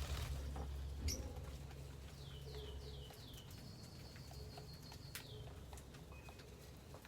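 Lovebirds calling: four quick falling chirps about two and a half seconds in, followed by a long thin high note lasting nearly two seconds. A sharp click comes about a second in, and a low steady hum runs underneath.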